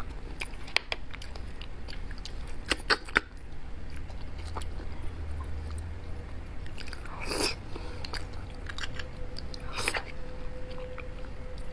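Close-up eating sounds of soft braised beef bone marrow: chewing and mouth sounds, with small clicks of a metal spoon and pick against the bone early on, and two longer, louder mouth sounds about seven and ten seconds in.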